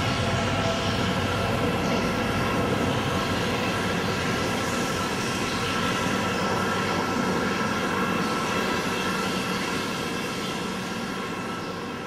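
Omnisphere 2 sci-fi rain patch built from a light-rain-and-distant-thunder field recording layered with a Juno-60 sub and a noise layer: a dense, steady rain hiss with a held cluster of steady tones ringing through it, slowly fading over the last few seconds.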